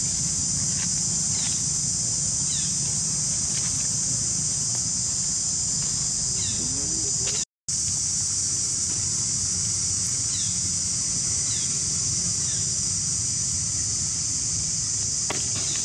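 Steady high-pitched insect chorus, with a low steady hum underneath and a few short faint chirps. All sound cuts out for a moment about halfway through.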